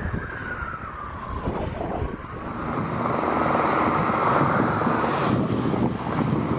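Fire truck siren wailing: its pitch falls, then rises again and holds before fading about five seconds in. Wind rumbles on the microphone underneath.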